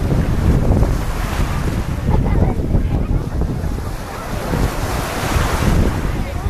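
Wind buffeting the microphone with a steady low rumble, over small waves washing onto a sandy shore; the surf hiss swells twice, about a second and a half in and again near the end.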